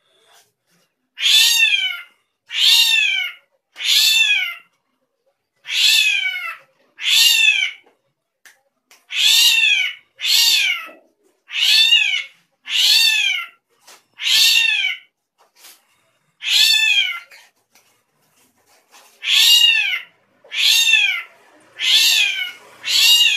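Srigunting krantil (drongo) giving a long series of cat-like mewing calls, each rising then falling in pitch, about fifteen in all, one every second or two with a few short pauses.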